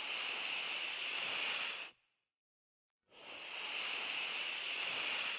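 A hiss heard twice, each lasting about two and a half seconds, the same both times, with a pause of about a second between them.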